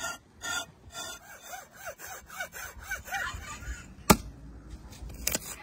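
Large knife blade scraping hair off the hide of a cow's head in quick repeated strokes, about four a second, each with a slight squeak. A sharp knock about four seconds in, and a smaller one near the end.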